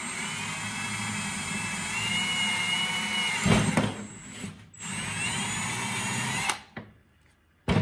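Cordless drill with a 3/8-inch bit boring through half-inch PVC pipe: the motor whines steadily, breaks off with a loud knock about three and a half seconds in, then runs again for about two seconds and stops abruptly. A short sharp knock comes near the end.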